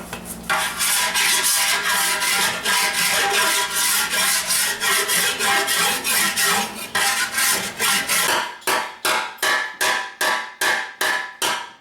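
Hand file rasping in quick strokes across the sheet steel of a Harley-Davidson Sportster tin, the panel ringing under it. The strokes run together at first, then from about eight seconds in come separate, about three a second. It is knocking down any raised edge around the dent so the damage is all sunk below the surface before it is lead-filled.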